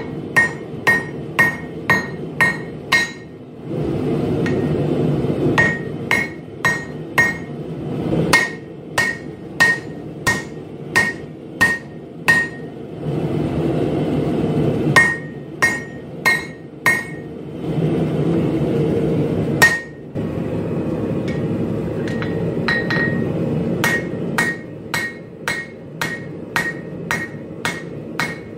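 Hand hammer striking a red-hot laminated steel blade bar (1084 and 15N20) on an anvil, in runs of blows about two a second, each with a bright metallic ring. Short pauses between the runs are filled by a steady low rushing noise.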